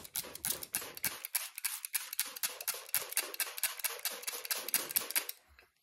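Hand spray bottle squirting water into the corner of a plastic scorpion enclosure, its trigger pumped quickly in a long run of short hissing sprays, several a second, stopping near the end.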